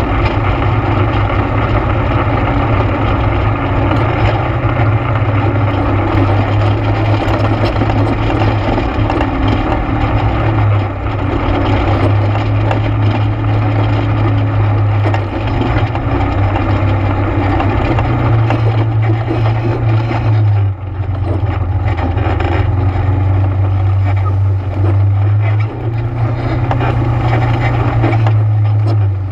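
ATV engine running steadily while riding the trail, its pitch stepping up and down with the throttle and easing off briefly a few times, around ten, fifteen, twenty-one and twenty-five seconds in.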